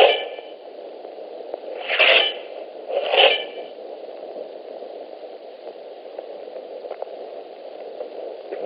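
Steady hiss of a worn, low-quality film soundtrack, broken near the start by three short, loud sounds, each with a brief ringing tail.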